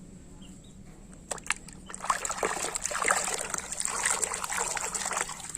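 Water splashing and trickling as a plastic toy car is washed by hand, with a couple of small knocks before it.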